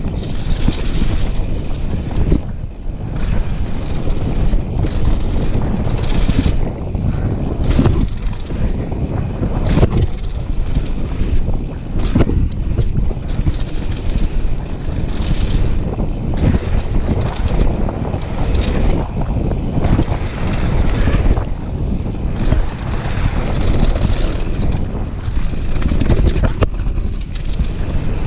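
Downhill mountain bike rolling fast over a dirt trail: a steady rumble of knobby tyres and wind rushing over the camera's microphone, with the frame and chain rattling and several sharp knocks as the wheels hit bumps.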